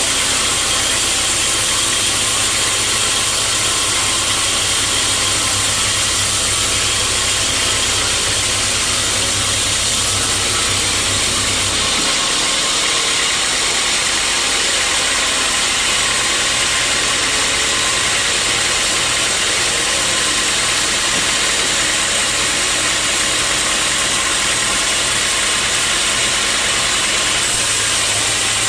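Sawmill machinery running steadily: a motor's low hum under a loud, even high-pitched noise. The low hum drops away about twelve seconds in, while the rest carries on.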